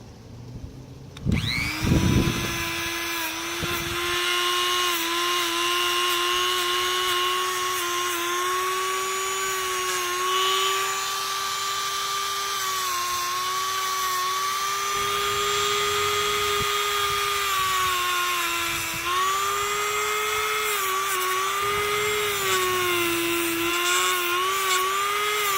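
Mazda 5 engine starting about a second in, then running with a loud steady whine that wavers slightly in pitch.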